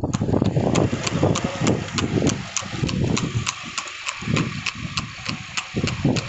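A horse's hooves clip-clopping on a paved road as it pulls a two-wheeled cart, in an even rhythm of about four hoofbeats a second.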